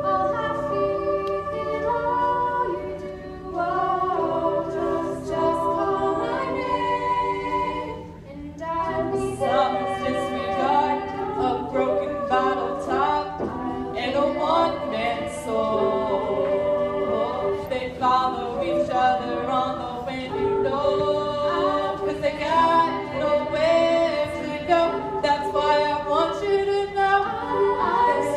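A cappella choir singing in harmony, several voice parts with no instruments, with a short dip about eight seconds in.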